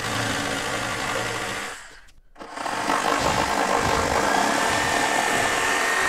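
Corded jigsaw cutting a notch into particleboard, the blade running in two stretches with a short pause about two seconds in.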